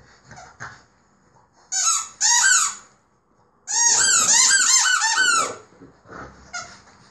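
A rubber squeaky dog toy squeaking as a French bulldog puppy chews it. There are two short squeaks about two seconds in, then a fast run of squeaks lasting nearly two seconds.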